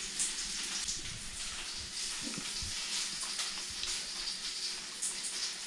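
A steady hiss with a few faint clicks of a metal fork against a china plate.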